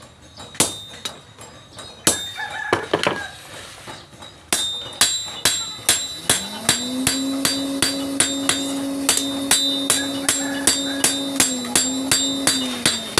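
Hammer blows on steel being forged into a fish spear: sharp, ringing strikes, sparse at first, then a steady rhythm of about three a second from about four and a half seconds in. From about six seconds in, a steady low hum rises to a constant pitch and runs under the blows until near the end.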